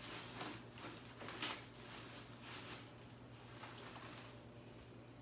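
Quiet room tone: a faint steady low hum with a few soft, brief rustles.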